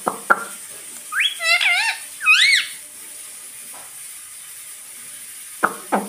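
Ring-necked parakeet chirping: three or four quick calls, each rising and falling in pitch, a little over a second in. A few short sharp clicks come just after the start and again near the end.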